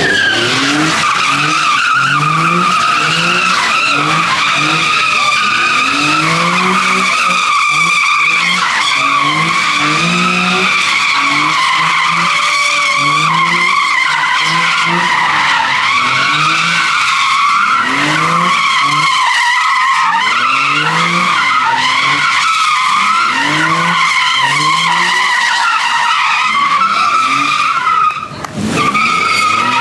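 Tires squealing continuously as a vehicle spins donuts, the squeal wavering in pitch, while the engine revs rise and fall over and over. The sound briefly drops about two seconds before the end.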